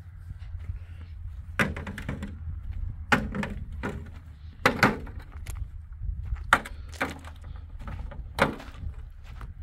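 Irregular sharp knocks and cracks, about eight in all and spaced a second or so apart, over a steady low hum.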